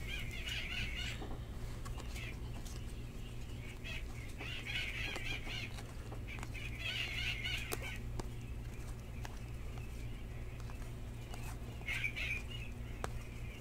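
Stack of 2013 Panini Prizm baseball cards being thumbed through by hand: the cards slide and rustle against each other in short spells, over a steady low hum.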